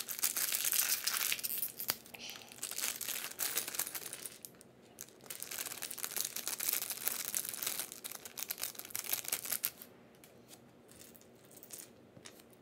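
Clear plastic polybag of building bricks being torn open and handled, crinkling and crackling in two long stretches. Near the end, a few light clicks of small plastic bricks being picked up.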